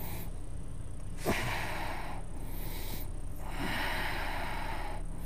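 A person breathing slowly and audibly, two long breaths a couple of seconds apart, over a faint steady hum, with one short click about a second in.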